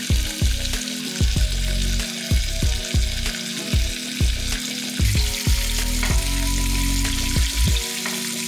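Butter and a bone-in chop sizzling steadily in a nonstick frying pan as the melted butter is pushed around and spooned over the meat. Background music with a regular low beat plays over the sizzle.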